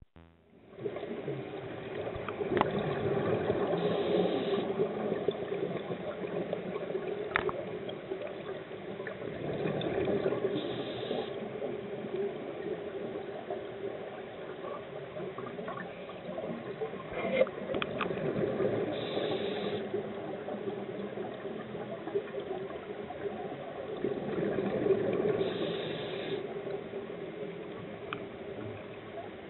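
Scuba diver breathing through a regulator underwater: a rush of exhaled bubbles swelling and fading every six to eight seconds, with a short hiss at each breath. A few sharp clicks are heard now and then.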